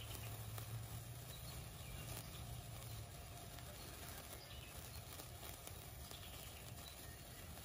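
Square-spiral Sunwing Happy Hour sparkler burning on a stake: a faint fizz dotted with small crackling ticks, over a low hum that eases about three seconds in.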